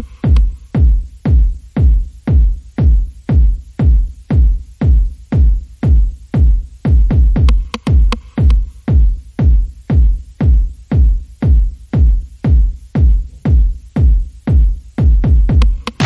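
Electronic dance music with a steady, loud kick drum at about two beats a second.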